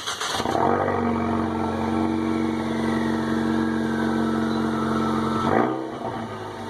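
Car engine cranking briefly and catching, then running at a steady idle; about five and a half seconds in the note briefly rises, then drops and settles.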